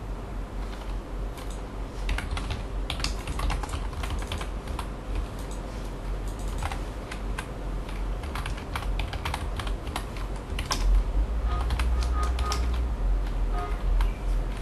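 Typing on a computer keyboard: irregular runs of key clicks as a message is typed out, over a low steady hum.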